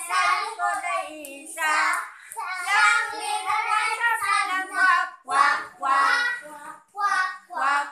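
Several young children singing together without accompaniment; after about five seconds the singing breaks into short phrases with brief pauses between them.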